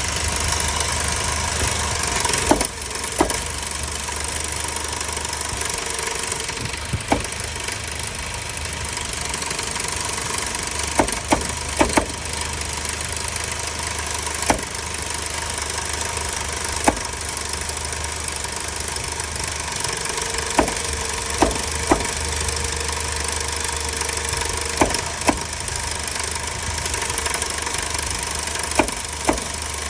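Chevrolet Captiva running steadily with sharp knocks at irregular intervals, some coming in quick pairs or triples, standing out above the engine hum. This is the odd noise the vehicle has been making.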